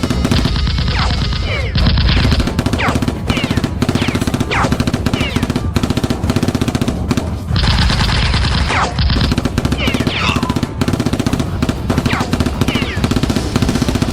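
Rapid automatic gunfire sound effects, long rattling volleys of shots, over action background music with a steady low beat.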